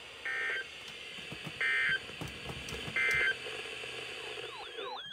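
Emergency Alert System end-of-message data bursts: three short, identical electronic squawks about a second and a half apart over a hissy broadcast background, marking the end of the warning. Near the end a warbling tone that sweeps up and down starts.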